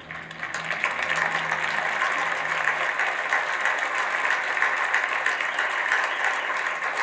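Large crowd applauding, the clapping swelling in about half a second in and then holding steady.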